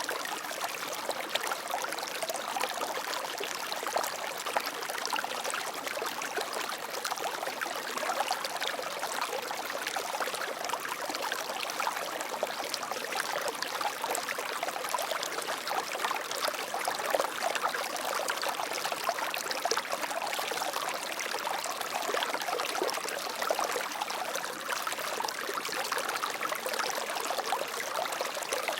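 Water flowing steadily in a stream, an even splashing and trickling rush with no pauses.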